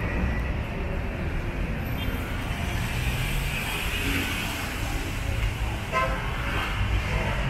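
Street traffic: vehicle engines and tyres giving a steady low rumble, with a brief horn toot about six seconds in.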